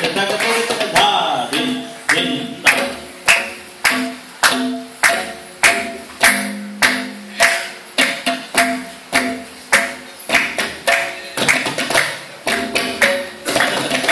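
Several tabla pairs played together in an ensemble: sharp, evenly spaced strokes about two a second through the middle, with denser, quicker strokes at the start and again near the end, over held pitched tones.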